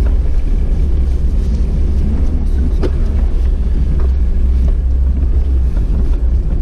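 Off-road 4x4's engine and running gear rumbling steadily at low speed, heard from inside the cabin, with a couple of sharp knocks as it crawls over the snow.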